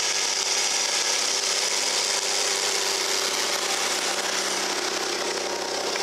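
Challenger MT765B tracked tractor running steadily under load as it pulls a three-furrow plough through dry soil, with a strong steady hiss over the engine note.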